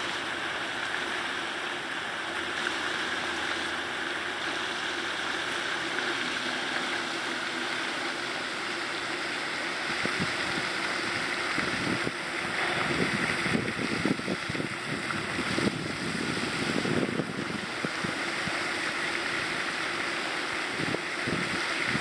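Floating pond fountain spraying water up and letting it fall back onto the pond, a steady rushing splash. From about halfway through, uneven low rumbles come in under it.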